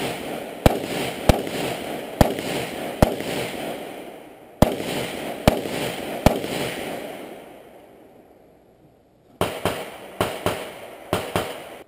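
Rifle shots at a practical-shooting stage: single reports about a second apart, then a pause, then faster pairs of shots near the end. Each report trails off in a long echo.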